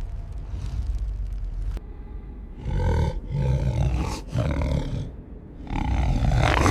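A large creature roaring: four loud calls in a row, the first about two and a half seconds in, over a low rumble.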